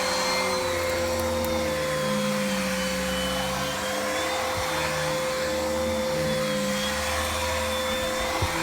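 Nilfisk Buddy II outdoor vacuum cleaner running at full suction while the boot of a car is vacuumed. It makes a steady high motor whine over a lower drone that shifts up and down in pitch every second or so.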